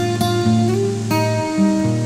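Background music: an acoustic guitar playing, its notes plucked and strummed.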